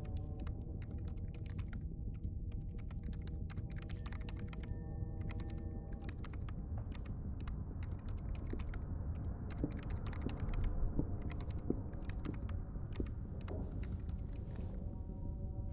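Fast typing on a laptop keyboard: a dense, irregular run of key clicks over a low steady drone. The clicks thin out near the end.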